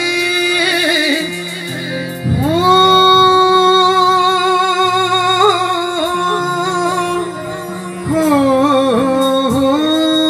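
A man singing a Punjabi Sufi song through a PA system, holding long drawn-out notes and sliding up into them, over a low sustained keyboard accompaniment.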